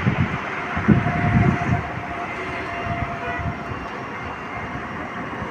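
Steady road and wind noise of a moving electric vehicle, with a few low rumbles in the first two seconds.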